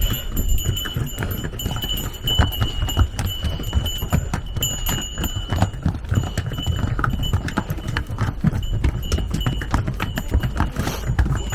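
Hooves of pack animals clip-clopping irregularly on stone steps, with a thin high steady ringing tone behind them.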